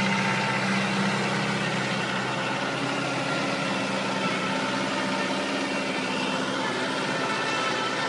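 New Holland tractor's diesel engine running steadily as it pulls a rotary tiller seed drill through the soil. It gives a steady mechanical hum whose low tone eases a little after about two seconds.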